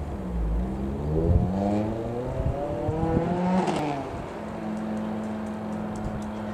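A road vehicle's engine rises in pitch as it accelerates past, peaks about three and a half seconds in, then drops away. The steady drone of the Piper PA-28-180 Cherokee's single piston engine and propeller continues behind it.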